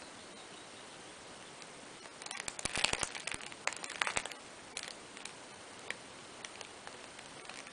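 Kitten's paws and claws scrabbling on a fabric playmat: a scratchy, crackling rustle starting about two seconds in and lasting about two seconds, then a few scattered light ticks.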